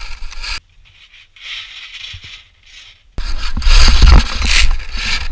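Skis scraping and sliding on firm snow, heard close up, with a low rumble under it. The scraping drops away for a couple of seconds, then comes back suddenly and much louder about three seconds in.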